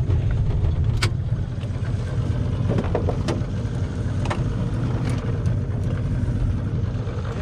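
Small boat's outboard motor idling steadily, with a few sharp clicks and knocks on the boat now and then.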